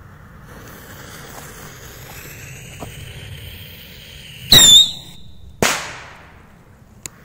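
A small stick firework rocket: its lit fuse hisses steadily for about four seconds, then the rocket launches with a brief loud whistling screech and bursts about a second later with a sharp bang that trails off.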